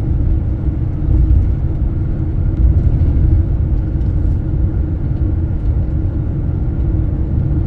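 Road and engine noise heard from inside a moving vehicle: a steady low rumble.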